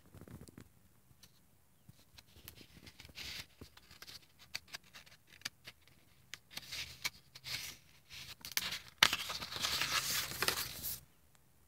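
Paper rustling and crinkling as the stiff, painted and collaged pages of a spiral-bound art journal are handled, with scattered light clicks. The loudest rustle, about nine seconds in, is a page being turned over.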